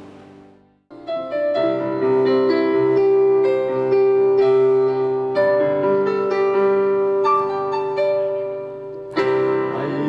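Background piano music, starting about a second in after a brief silence, with held notes; the music grows fuller about nine seconds in.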